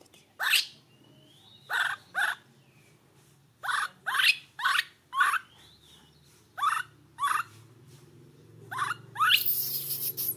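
Infant macaque crying with a string of short, high, rising squeals, singly or two or three at a time, coming faster and louder near the end.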